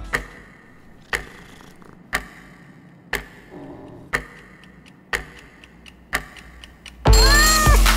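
Wall clock ticking loudly once a second, seven ticks in a row. Near the end, loud music cuts in abruptly.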